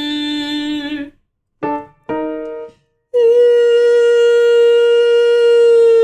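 A woman singing a held vowel as a voice exercise; the note stops about a second in. After a short pause, two brief notes are played on a digital piano, and about three seconds in she sings a new, higher held note and keeps it steady.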